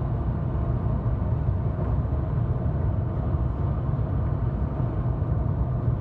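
Steady low rumble of a car driving at highway speed: tyre and road noise from the moving car.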